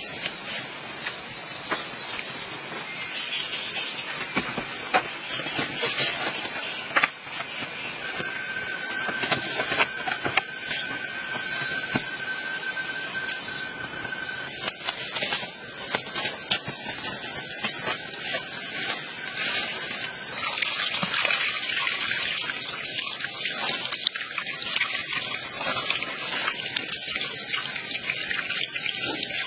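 Light crackles and rustles of palm-leaf strips being woven into a shelter wall, over a steady high insect drone. About halfway through this gives way to the steady splash of water running from a split-bamboo spout onto a leaf.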